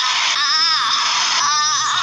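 High-pitched, crying-like voice: two short wavering cries over a steady hiss.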